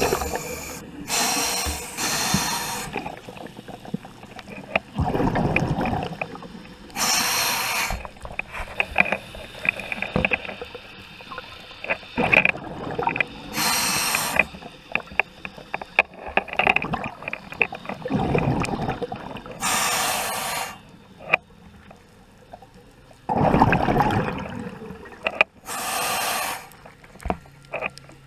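Scuba diver breathing through a regulator underwater, in a slow cycle about every six seconds. Each inhale is a short hiss from the regulator, and each exhale is a longer low rumble of bubbles.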